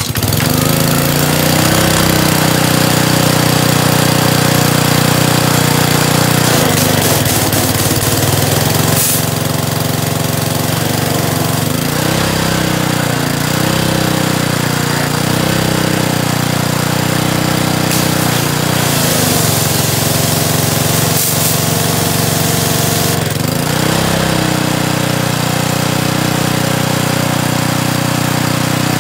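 Honda GCV190 single-cylinder engine on a pressure washer starts at once with the choke pulled out, then runs steadily. Its speed sags and recovers a few times along the way.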